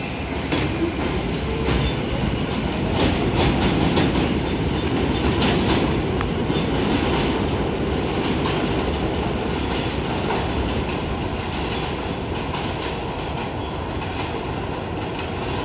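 R62 subway train pulling out and picking up speed, its motors rising in pitch at first and its wheels clattering over the track joints. It is loudest a few seconds in, then slowly fades as the train moves away.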